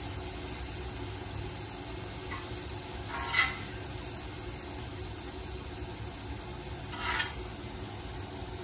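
Sliced steak, peppers and onions sizzling steadily on a Camp Chef gas griddle, with a metal spatula scraping across the griddle twice, about three seconds in and again near the end.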